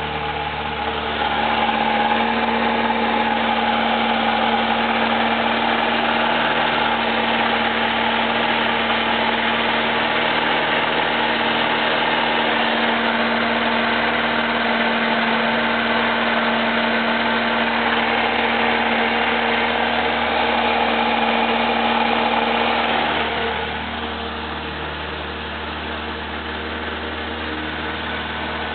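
Boat's inboard marine engine idling steadily, fuelled by a newly fitted fuel pump that keeps it running smoothly. The engine sound drops noticeably quieter about three-quarters of the way through.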